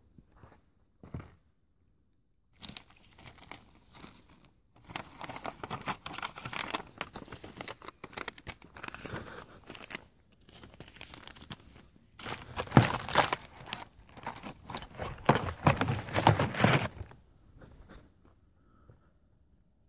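Crinkling and rustling of something being handled, in irregular bursts that grow louder and stop a few seconds before the end.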